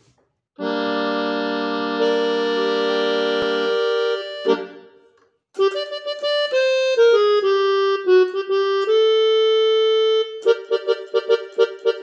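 Casio electronic keyboard playing a melody in raga Punnagavarali (G minor). It opens with a held chord, then after a short break plays a single line of notes stepping downward, holds one long note, and near the end plays a quick run of short notes at about four a second.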